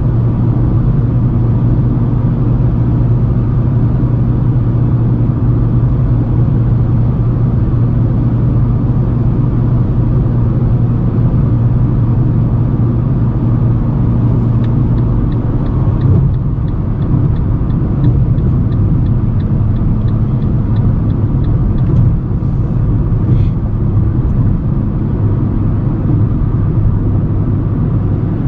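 Fiat Strada's 1.4 four-cylinder engine and tyre noise heard from inside the cabin while cruising on the highway: a steady low drone. A light regular ticking, about three a second, comes in for several seconds around the middle.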